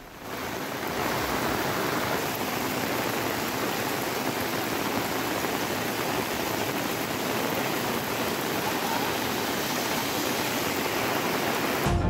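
Steady, even rushing noise of storm water, like heavy surf or downpour, with no rise and fall.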